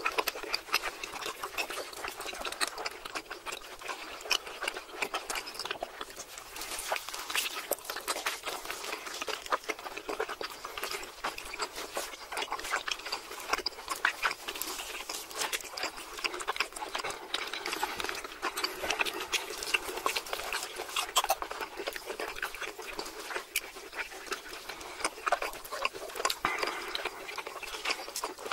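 Close-up chewing and wet mouth sounds of people eating steak: a steady run of small crackly, smacking clicks.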